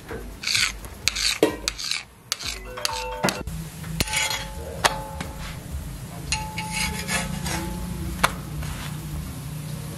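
Metal spatula scraping and tapping on a flat griddle while parottas cook, over light sizzling of oil. There are several short rough scrapes in the first few seconds, then scattered sharp taps.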